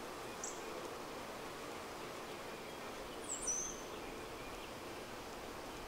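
Honeybees from an open hive buzzing in a steady low hum. A bird gives a short high chirp about half a second in, then two quick falling chirps a little past the middle, which are the loudest sounds.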